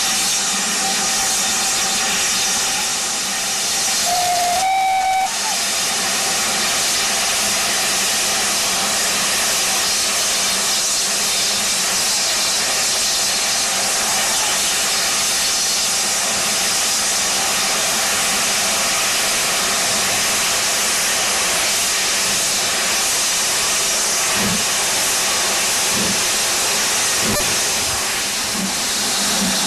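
Steam locomotive hissing loudly and steadily with steam escaping, with one short whistle blast about four seconds in that rises slightly in pitch. A few soft low beats come near the end.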